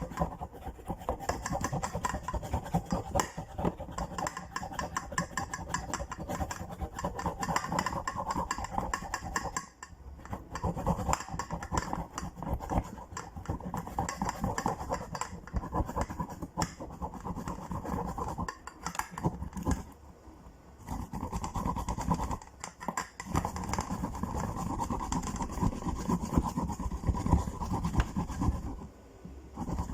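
Fresh ginger root, skin on, grated by hand on a grater: rapid rasping strokes back and forth, broken by a few brief pauses.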